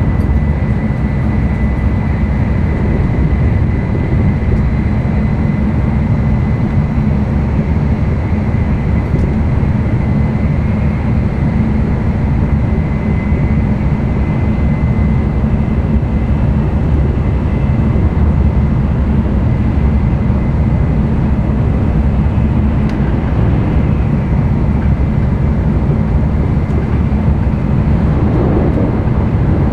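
Interior running noise of an N700-series Tokaido Shinkansen at speed: a loud, steady low rumble with a thin, steady high tone above it.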